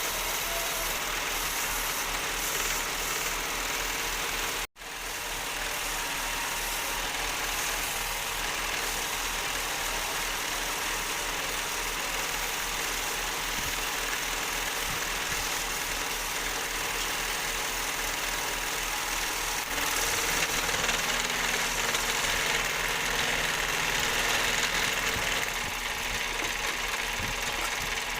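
Wood lathe running steadily, with a dense hiss from turning work, growing somewhat louder about two-thirds of the way through. The sound cuts out for an instant almost five seconds in.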